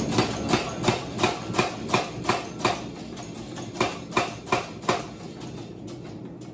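Power hammer striking a steel button-stamp die holding glowing-hot steel: eight quick, evenly spaced blows, about three a second, then after a pause of about a second four more.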